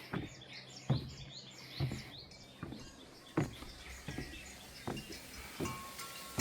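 Footsteps climbing stone stairs, a dull thump about every 0.8 seconds, with small birds chirping throughout. Near the end a wind chime starts ringing.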